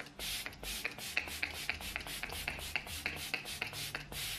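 Maybelline Lasting Fix setting spray pump bottle misting the face: short hissing sprays in quick succession, about four a second.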